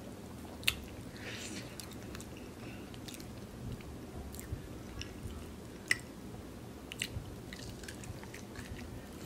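A person chewing food close to the microphone, with scattered sharp wet mouth clicks and smacks; the loudest comes about six seconds in.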